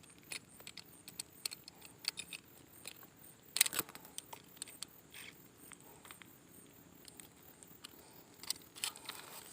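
Faint, irregular clicks and small rattles from fishing tackle being handled, with one louder rustle about three and a half seconds in.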